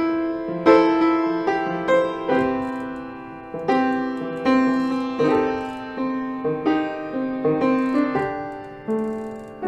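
Piano playing the introduction to a slow song: chords and notes struck about once a second, each ringing and fading before the next.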